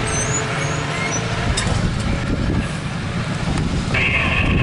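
MARC bilevel commuter train running along the tracks: a steady low rumble with engine noise. A steady hiss cuts in abruptly near the end.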